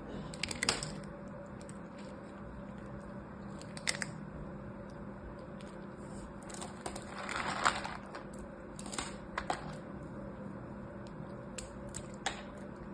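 Dry carved-soap shavings clicking and crackling as fingers sift and pinch them in a plastic tub: scattered light clicks, with a longer rustle about seven seconds in as the hands stir through the pile. A faint steady hum underneath.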